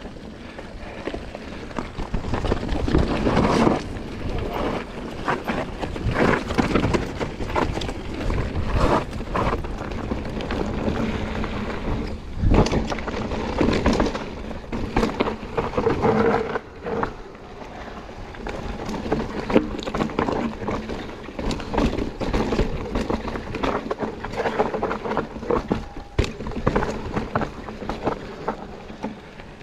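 Mountain bike descending a rough trail: tyres rolling over dirt and rock, and the bike rattling with frequent knocks. Wind noise on the microphone.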